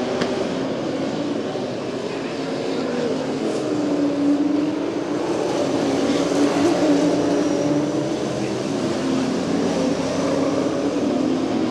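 A pack of Late Model stock car V8 engines running hard around the oval: a steady, loud drone whose engine notes rise and fall as the cars go past.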